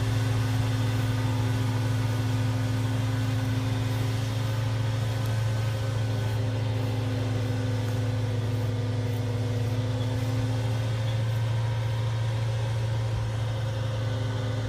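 Engine of paving equipment running steadily at constant speed, a loud even low hum that does not rev up or down.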